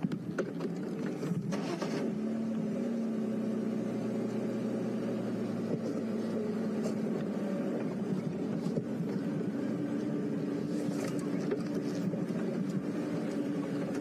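Engine of a safari game-drive vehicle running steadily as it drives slowly off-road through the bush, growing a little louder over the first couple of seconds.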